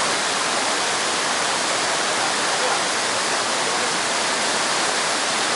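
Waterfall cascading: a steady, even rush of falling water.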